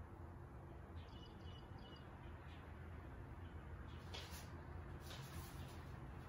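Quiet room tone with a steady low hum. A faint high chirp comes about a second in, and a soft paper rustle as a sheet of paper is handled comes about four to six seconds in.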